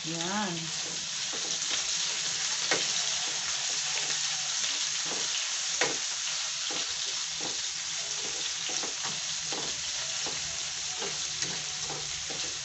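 Chicken pieces sizzling steadily in hot oil in a nonstick frying pan while being browned, with a spatula stirring and now and then knocking against the pan.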